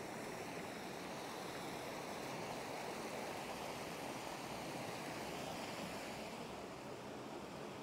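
Mountain river rushing steadily over rocks and small cascades.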